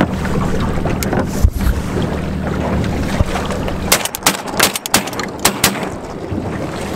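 Steady low motor hum on open water with wind on the microphone. A heavy thump comes about a second and a half in, then a quick run of sharp cracks between about four and six seconds in, while the hum drops out.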